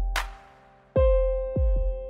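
Electronic background music: deep bass hits that drop in pitch, a snare-like hit just after the start, and a held keyboard chord coming in about a second in.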